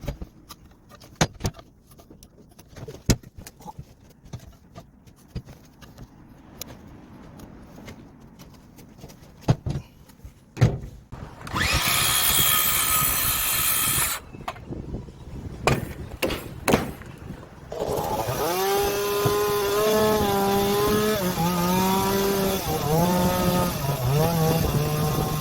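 Scattered knocks and taps of timber work, then a chainsaw cutting wood for about two seconds. The saw stops, a few more knocks follow, and from about two-thirds of the way in the chainsaw runs unloaded, its pitch stepping up and down.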